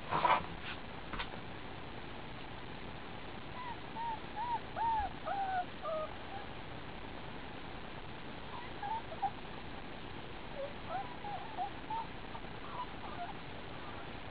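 Four-week-old German Shepherd puppies squeaking and whimpering in short, high, rising-and-falling calls, in two runs of several seconds each. A brief knock and a couple of clicks are heard at the very start.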